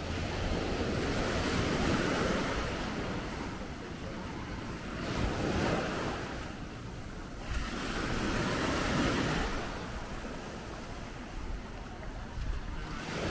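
Sea waves washing in, with about four swells that rise and fall a few seconds apart. Wind rumbles on the microphone.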